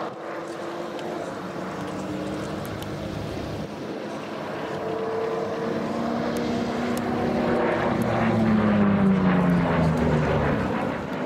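Piston-engined propeller fighter flying past overhead. Its engine note grows louder as it closes in, and the pitch drops as it passes about nine seconds in.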